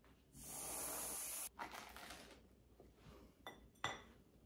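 Aerosol whipped-cream can spraying onto waffles: a steady hiss lasting about a second that cuts off suddenly, followed by two light clicks near the end.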